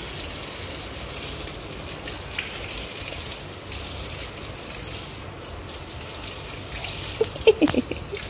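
Water from a garden hose gushing and splashing steadily over a dog's wet coat and onto a concrete floor, rinsing soap lather off its legs.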